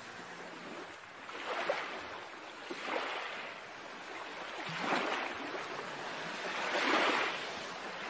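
Sea waves washing in against rocks at the foot of a cliff. The surf swells and falls back in about four surges.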